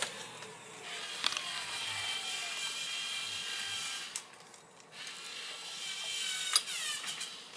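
Small electric motor running with a steady high whine, switched between speeds with sharp clicks. It drops in level after a click about four seconds in, then comes back. After a click near the end its pitch falls as it winds down.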